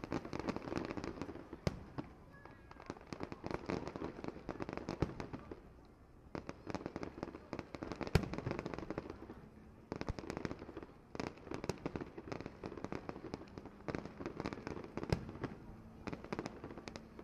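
Aerial fireworks bursting overhead: dense runs of rapid crackling pops with brief lulls about six and ten seconds in, and one sharper bang about eight seconds in.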